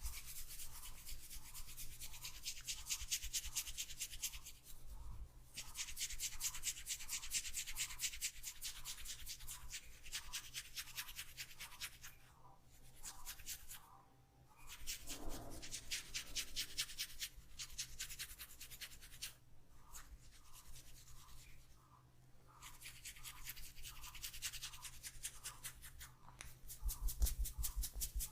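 Hands rubbing quickly over hair and scalp in a head massage: fast, even strokes several times a second, in runs of a few seconds broken by short pauses.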